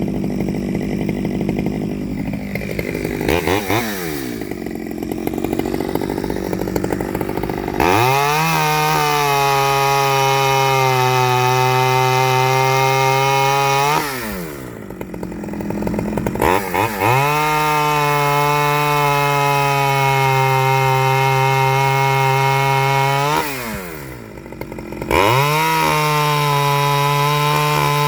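Stihl 009L two-stroke chainsaw on its standard single-screw carburettor, running low for several seconds with one brief blip, then revved to full throttle three times to cut wood, holding a steady high pitch in each cut and dropping back toward idle between them.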